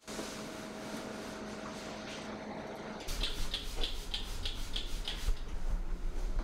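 A faint steady hum over room noise. About three seconds in, it changes abruptly to a low rumble and a quick run of soft scratching strokes, about four a second, from a grooming brush worked through a large dog's long coat.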